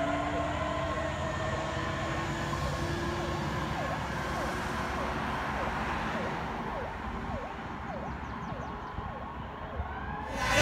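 Fire truck sirens fading as the tiller ladder truck drives away: a siren tone slides down in pitch at first, then a rapid yelping siren sweeps up and down about twice a second.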